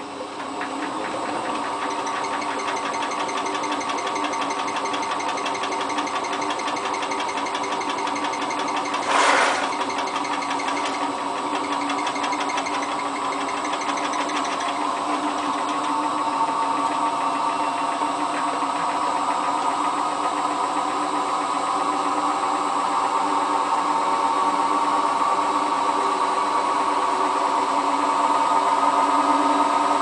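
Hotpoint Ultima WT960 washing machine's drum motor starting up and spinning, with a whine that rises slowly in pitch and grows louder as the drum speeds up on a fast spin. The small load of trousers is spun unbalanced, without the usual balancing. A brief loud burst of noise comes about nine seconds in.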